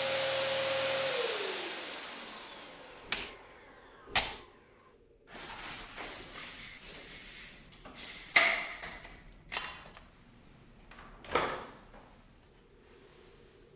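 Dyson DC07 upright vacuum cleaner's motor running, then spinning down with a falling whine after being switched off. Several sharp clicks and knocks follow as the hose and its fittings are handled.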